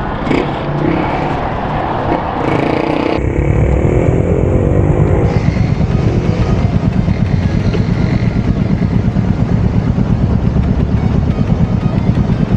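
Royal Enfield Hunter 350's single-cylinder engine and exhaust on the road, mixed with street noise for the first few seconds. Then, from about three seconds in, its low, evenly pulsing thump takes over, briefly rising in pitch before settling into a steady run.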